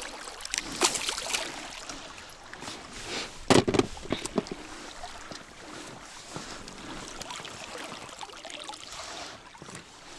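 River water lapping around an inflatable boat, with handling clicks and a loud thump about three and a half seconds in as a small asp is released, then a lure cast from a spinning rod.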